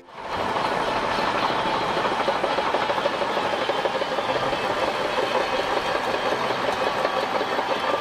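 Shantui crawler bulldozer working, its diesel engine running and its steel tracks clattering steadily as it pushes sand. The sound comes in just after the start and fades out at the end.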